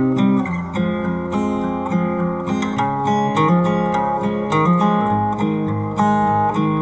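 Background music: acoustic guitar, plucked and strummed in a steady flowing pattern.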